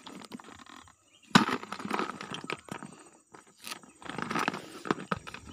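A gloved hand handling a caught eel inside a bucket: a sudden loud knock about a second in, then scraping and rustling against the bucket, with another stretch of rustling near the end.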